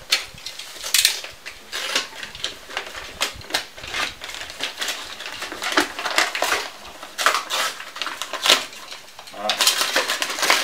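Box cutter scraping and slicing through packing tape and cardboard on a shipping box, a run of sharp clicks and scrapes. Near the end the cardboard flap is torn open by hand with a dense rustling rip.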